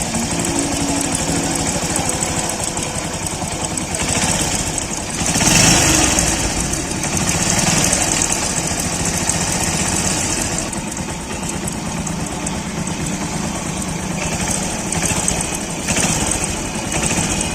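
Bajaj CT 100's single-cylinder four-stroke engine idling, rising briefly about five seconds in and settling back. Under it runs a very faint tinkling rattle from the clutch. The cause is a wrongly matched clutch hub, a Discover 100 part fitted in place of the correct one.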